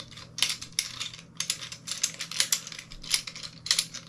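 Small plastic light stand and mount being twisted and screwed together by hand: a quick, irregular run of clicks and scrapes of plastic on plastic.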